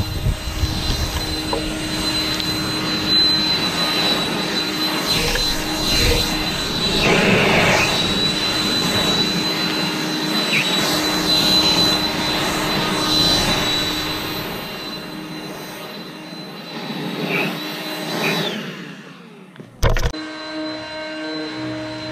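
Battery-powered leaf blower running steadily, a high electric whine over a rush of air as it blows grit and debris off a brick paver walkway. Near the end the whine drops away and the sound dips briefly, then a sharp click and the blower is heard again.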